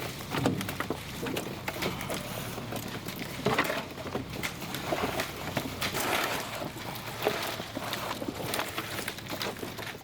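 Cabernet Sauvignon grapes being harvested by hand: a busy, irregular stream of clicks, knocks and rustling.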